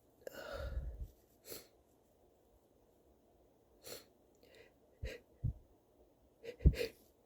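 A person's sneeze build-up: short hitching breaths and sniffs spaced out over several seconds, with a brief, louder catch near the end. The sneeze does not come: a false start.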